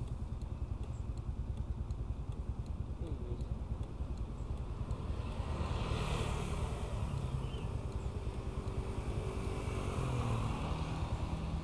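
Motorcycle engine idling with a steady low throb, while another vehicle passes on the road, swelling about halfway through and dropping in pitch near the end.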